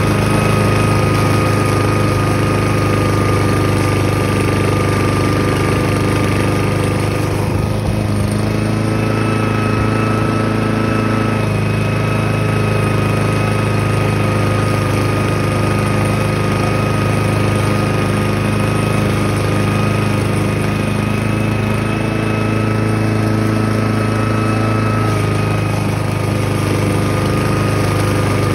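Walk-behind lawn mower's 159 cc single-cylinder engine running steadily while the mower is pushed across grass, with small shifts in its note as the load changes.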